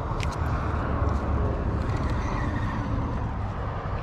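Steady low outdoor rumble, with a few light clicks in the first half-second.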